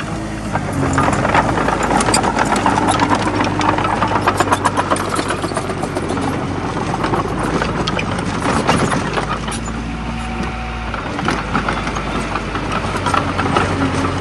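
Komatsu D20A bulldozer's diesel engine running steadily under work, with a continuous rapid clatter of short clicks from the machine.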